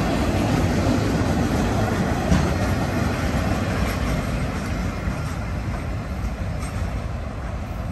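Freight flatcars loaded with track maintenance machines rolling past on the rails, a steady rumble and rattle of wheels with an occasional click, slowly fading as the tail of the train moves away.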